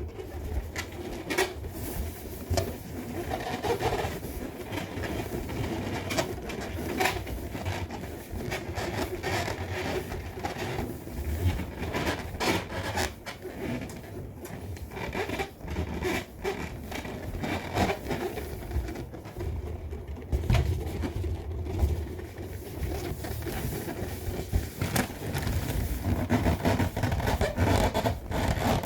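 Hands rubbing and squeezing an inflated balloon, making an irregular run of squeaks and rubbing noises.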